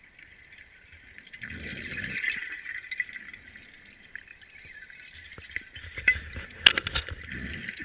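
Underwater scuba breathing: a diver's exhaled bubbles rumble about a second and a half in and again for a longer stretch from about five seconds, over a steady hiss. A few sharp clinks of gear come near the end.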